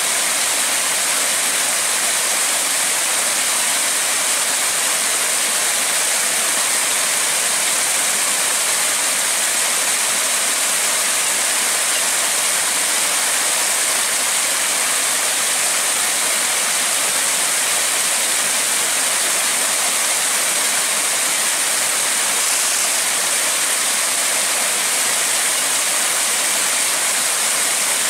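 Steady rush of river water churning at the foot of a concrete wall: an even, unbroken hiss.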